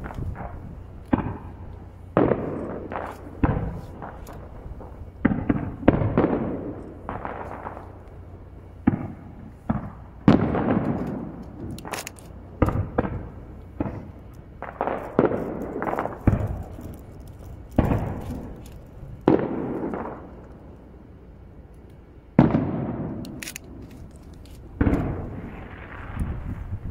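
Aerial firework shells bursting about 500 m away: a string of about twenty booms, roughly one every second or two, each trailing off in an echo, with a brief lull about three-quarters of the way through.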